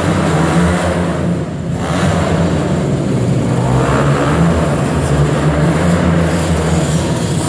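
Small motocross bike engines running at varying throttle on a dirt track inside a large hall.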